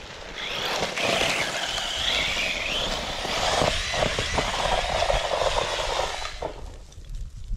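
Brushless electric RC car driving hard over loose gravel: a motor whine that rises and falls with the throttle over the hiss and spray of tyres on stones, dying away about six and a half seconds in.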